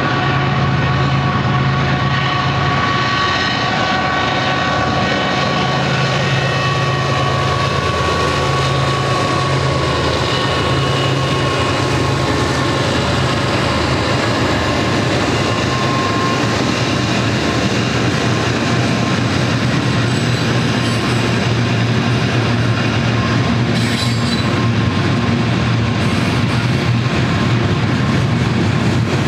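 BNSF GE ET44C4 diesel-electric locomotives running past under power, a steady drone with a high whine, giving way after about ten seconds to the steady rumble and clatter of a mixed freight train's cars rolling by on the rails.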